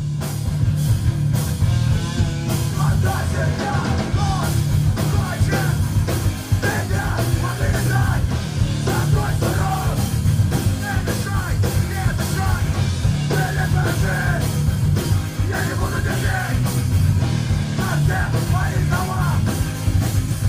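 Loud, fast punk rock with shouted vocals over steady, dense drumming.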